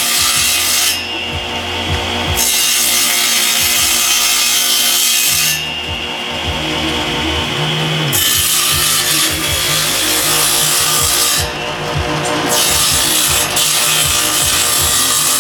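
Loud, steady abrasive scraping of a tool working the blowtorch, with the sharper hiss easing off for short spells about a second in, around five seconds in and near twelve seconds.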